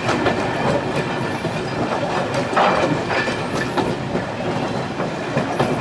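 A train running on the rails, its wheels clicking and clattering irregularly over the track in a steady rumble.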